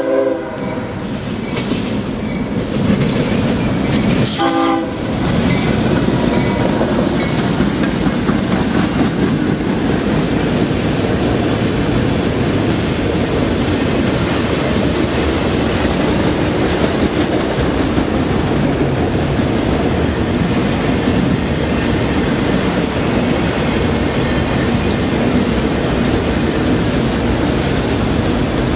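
Freight train passing: its horn blast ends right at the start and a short second blast sounds about four seconds in, then the locomotive and a long line of autorack cars roll by with steady, loud wheel-and-rail noise.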